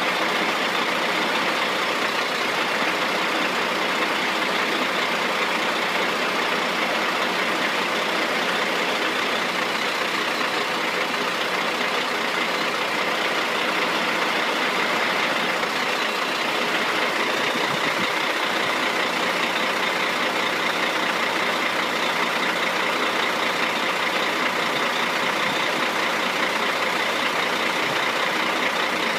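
Crane truck's engine running steadily at an unchanging speed.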